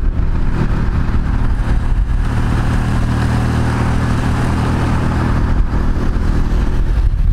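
Motorcycle engine running steadily at road speed, heard from the bike itself, with rushing air and road noise over it.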